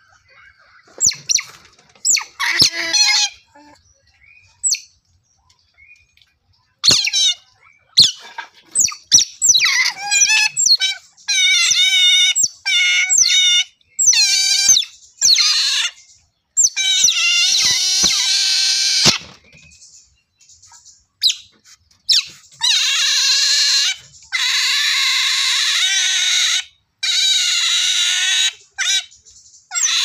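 Otters calling: high, squeaky chirps in short runs, then long, wavering squeals with a few short breaks in the last third.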